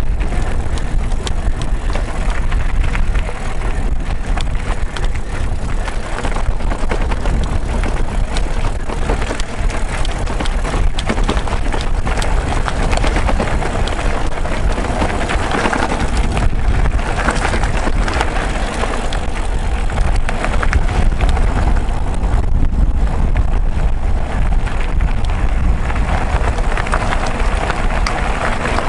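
Mountain bike ridden over a rough gravel trail: tyres running over stones with a continuous dense rattle of small knocks, over a steady low rumble of wind on the camera microphone.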